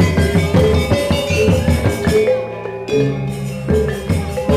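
Balinese gong kebyar gamelan playing an instrumental tabuh petegak: ringing bronze metallophones and gong kettles over kendang drum strokes. A little past two seconds in the ensemble briefly drops out, leaving only low ringing, then comes back in at full strength.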